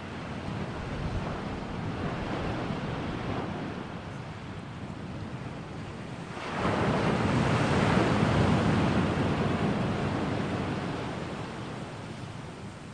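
A steady rushing noise from an ambient background track. It swells a little early on, then surges sharply about six and a half seconds in and slowly subsides over the next several seconds, like a wave washing in and drawing back.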